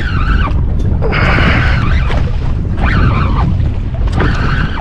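Wind buffeting the microphone in a steady rumble, with the rhythmic whirring of a conventional fishing reel being cranked in under the load of a hooked grouper, in pulses about every second and a half.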